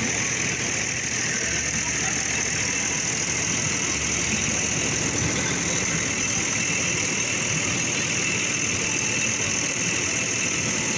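Tractor engine running steadily while driving a paddy thresher, a constant drone of engine and machinery.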